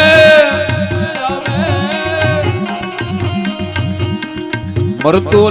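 Devotional folk song with drum accompaniment. The singer holds a long, wavering note for about the first two seconds. Then the drum beat and instruments carry on alone until the voice comes back in with a rising slide near the end.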